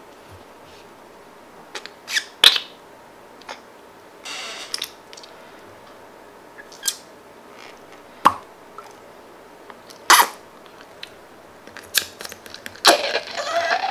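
Sticky slime squelching as a soft Slimy Bag Man squeeze toy is squeezed in the hands and slime oozes out of its head: short wet clicks and squelches every second or two, with a longer squishing stretch near the end.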